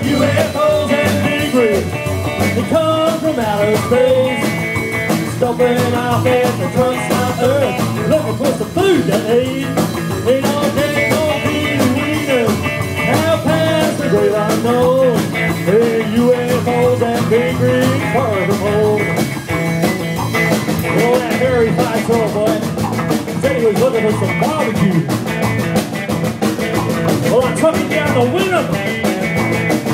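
Rockabilly band playing live: electric guitar, upright double bass and drum kit, at a steady beat, with a melody line that bends up and down in pitch.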